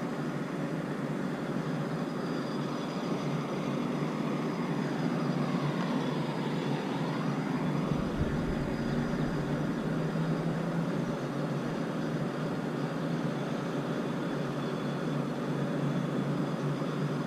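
Steady engine drone of a running motor or heavy machine, with a faint tone that dips in pitch and rises again a few seconds in.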